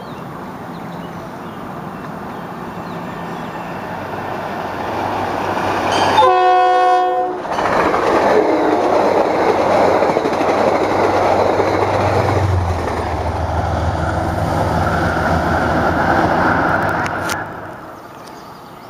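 Metro-North commuter train approaching and passing close by. The rumble grows, then one horn blast of about a second sounds a little past six seconds in and is the loudest thing. The rumble of the cars going by follows and drops off sharply near the end as the train clears.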